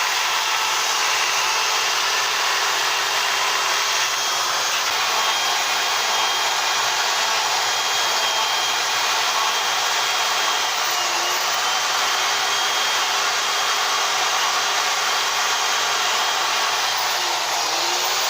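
Chainsaw running at a steady high speed while carving into wood.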